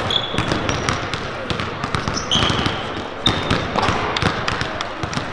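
Several basketballs bouncing on a hardwood gym floor in quick, overlapping dribbles, with a few short sneaker squeaks.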